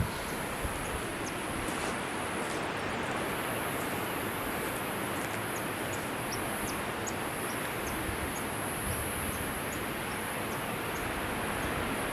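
Steady rush of a waterfall, Cachoeira Porto dos Correios, plunging through forest, with short high chirps scattered over it.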